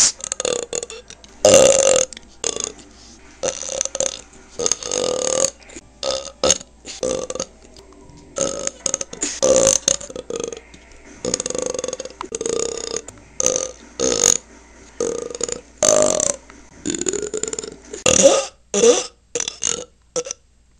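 A person belching over and over: a long string of separate loud belches with abrupt cuts between them, most short, a few drawn out for about a second.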